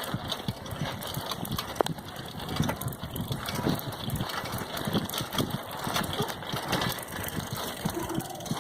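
Bicycle being ridden: irregular clicking and rattling from the bike, with the ratchet ticking of its freewheel, over a steady rushing noise.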